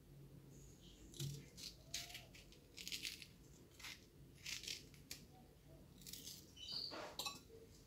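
Faint kitchen handling noises: a string of short rustles and clicks, about a dozen, while vegetables are arranged on an earthenware tagine, over a low steady hum.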